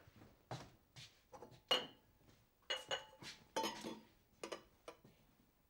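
Glassware clinking and knocking behind a bar counter: a string of sharp knocks, several with a brief ring, the loudest a little under two seconds in.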